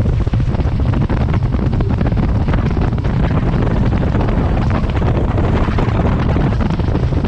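Steady wind buffeting the microphone of a bass boat running across a lake, with the outboard motor's low drone beneath it.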